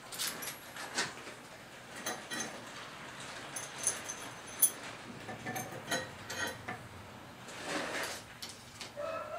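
Scattered knocks and light metallic clinks of hardware and tools being handled, a few of them briefly ringing. About nine seconds in, a rooster begins to crow.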